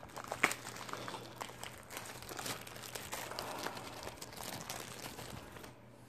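Plastic wrapping crinkling and crackling as it is worked off a small wrench, with one sharp crackle about half a second in; the crinkling stops shortly before the end.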